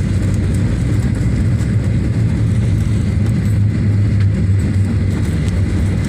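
Boeing 737 rolling out on the runway after touchdown, heard from inside the cabin: a loud, steady low rumble of engines and wheels on the runway, with the spoilers up for braking.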